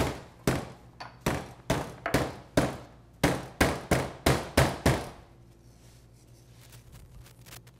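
Metal meat hammer pounding a butterflied chicken breast flat under plastic wrap on a cutting board: a quick run of about a dozen heavy thumps, two or three a second, stopping about five seconds in.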